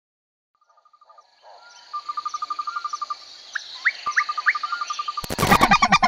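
A fast, even chirping trill with a thin steady high tone and three quick rising whistles. About five seconds in, it cuts to a flock of wild geese honking loudly, the loudest sound here.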